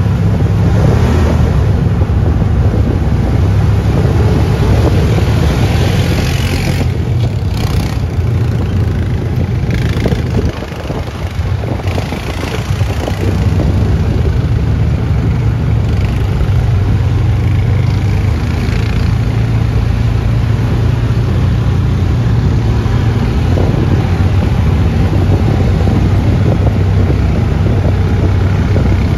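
Engine of an off-road side-by-side running steadily while driving along a dirt track, with tyre and rattle noise, heard from the seat. The engine eases off briefly about ten seconds in, then picks up again.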